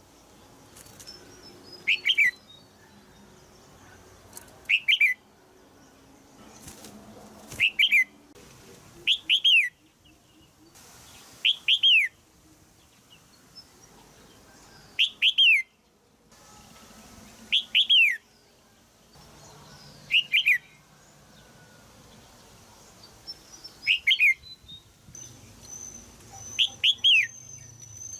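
Female red-whiskered bulbul giving short, sharp chirps, each a quick pair of falling notes, repeated every two to three seconds; the chirping is meant to stir a young male to sing.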